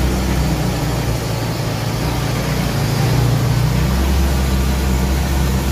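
Volkswagen 1.9 TDI four-cylinder diesel engine of a home-built tractor running steadily under load at about 2000 rpm while pulling a three-furrow plough, heard from the cab.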